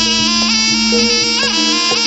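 Javanese jaranan music led by a slompret, a double-reed shawm, playing a nasal, held melody whose notes change about every half second over a steady drone.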